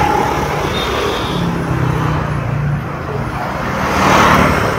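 Busy city street traffic: a steady mix of motorbike and car engines, with a vehicle passing closer and louder about four seconds in.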